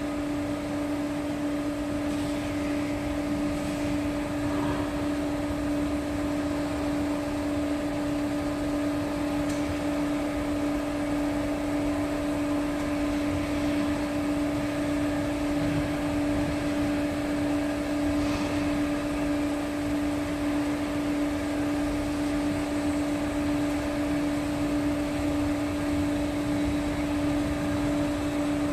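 Hydraulic power unit running steadily to work a test cylinder: an even, unchanging hum-whine at one pitch.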